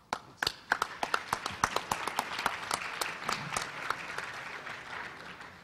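Audience applauding: a dense patter of hand claps that starts at once and fades out near the end.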